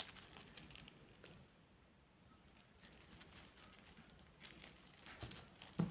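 Faint, sparse rustling of small plastic sticker packets being handled and set down on a table, with a few light taps in the last couple of seconds.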